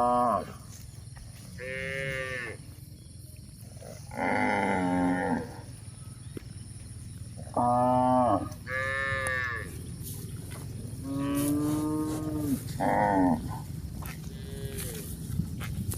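Cattle mooing: about eight short moos, each a second or less long, at differing pitches, some falling at the end, over a steady low rumble.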